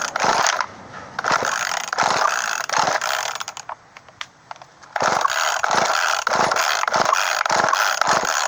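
Poulan Micro Pro Super XXV Deluxe chainsaw being pull-started with the choke on: the recoil starter cord yanked over and over, ratcheting as the engine turns over without catching, because the saw will not start. Two runs of quick pulls with a pause of about a second and a half between them.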